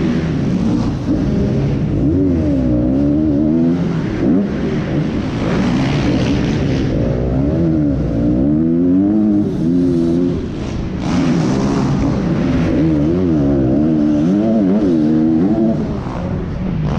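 Dirt bike engine heard from on the bike, revving up and dropping back over and over as the rider accelerates and shuts off around the track, with short gusts of wind noise between.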